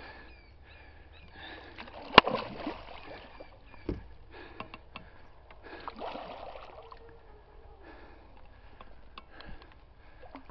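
Water splashing and sloshing as a hooked common carp of about 20 kg thrashes at the surface, in two spells a few seconds apart. A single sharp knock about two seconds in is the loudest sound, and a duller thump follows a couple of seconds later.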